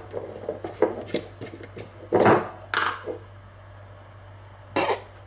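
Plastic screw lid of a glass Nutella jar being twisted off and handled: a few short clicks and knocks with brief rubbing sounds, over a low steady hum.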